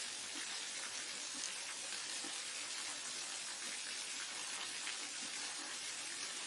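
Waterfall: a steady, even rush of falling water, mostly a high hiss with little low rumble.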